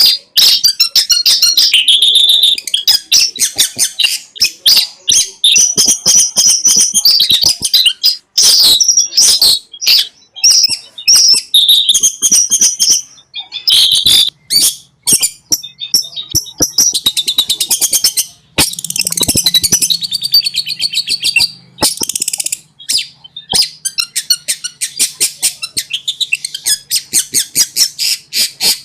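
Long-tailed shrike (cendet) singing loudly and almost without pause: high-pitched chattering phrases mixed with fast rattling runs of notes, which are densest in the second half. This is the nonstop 'konslet' song style used as a tutor recording for other songbirds.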